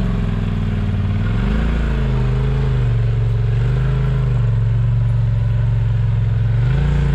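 Polaris RZR side-by-side's engine running at low revs, its pitch rising and falling with the throttle as it crawls through a deep rut.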